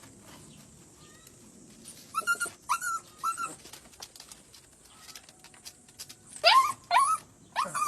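A dog giving short high-pitched cries, a run of three about two seconds in and three more near the end.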